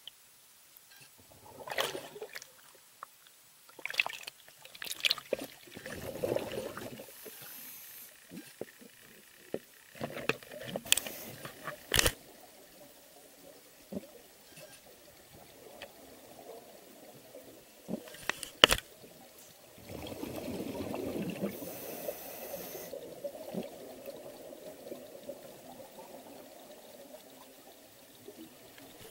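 Water bubbling and gurgling around a scuba diver in irregular bursts, with several sharp clicks and a longer rush of bubbles about twenty seconds in.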